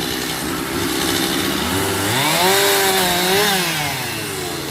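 Chainsaw engine idling, then revved up about two seconds in, held high for over a second, and let fall back toward idle near the end.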